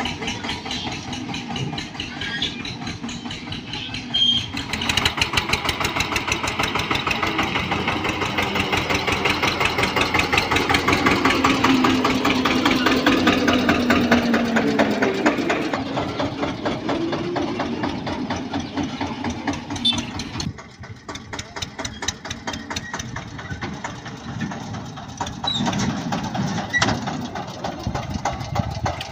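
Eicher 242 tractor's diesel engine running as it pulls a trolley, with a fast, even firing rhythm. It grows louder about five seconds in, eases off around twenty seconds, then picks up again near the end.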